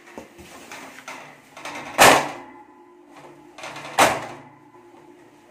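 Two loud thuds on a stainless steel door frame, about two seconds apart, each with a short metallic ring, amid scuffing and creaking of the panel. The men are stamping their weight onto the frame to bend a warped stainless door straight.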